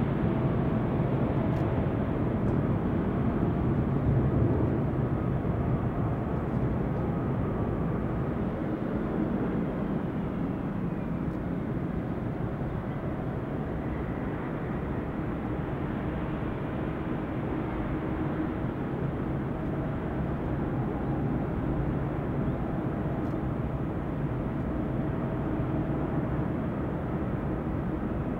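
Twin-engine widebody jet airliners rolling along the runway, their engines making a steady rumble with a faint whine. The sound is somewhat louder in the first few seconds and then settles.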